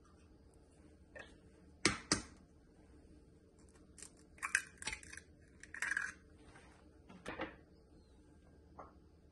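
An egg rapped twice sharply against a hard edge, then a few seconds of small cracks and clicks as the shell is broken open over a plastic blender beaker, and a softer knock a little later.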